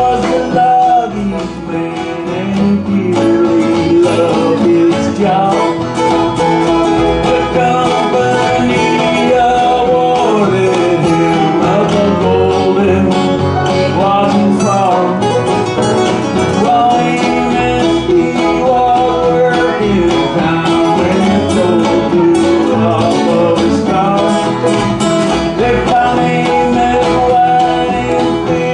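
Live acoustic band playing a country-bluegrass song: strummed acoustic guitars and a picked banjo, with singing over them.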